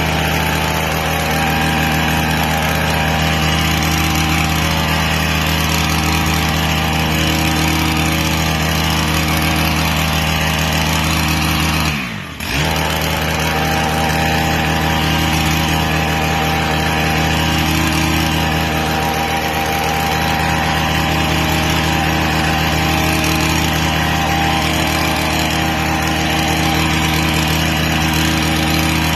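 Small two-stroke petrol engine of a hedge trimmer running steadily at high revs, briefly dropping in pitch about twelve seconds in as the throttle eases, then picking up again.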